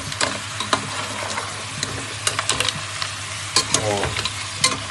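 A pot of green mussels hissing steadily on the burner while a spatula stirs them. The shells click and clatter against each other and the pot at irregular moments.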